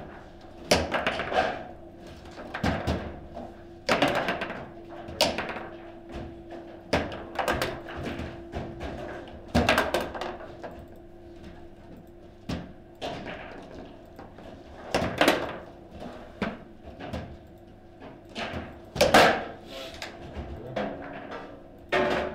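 Table football play: the ball cracking off plastic figures and the table walls, with rods knocking against the table, in irregular sharp knocks, some in quick bursts and some spaced out.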